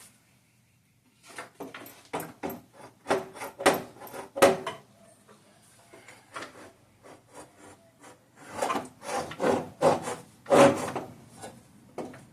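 A hard plastic coolant reservoir being pushed and wiggled into its mounting slot: irregular scraping, rubbing and knocking of plastic against plastic, in two spells with a quieter pause between.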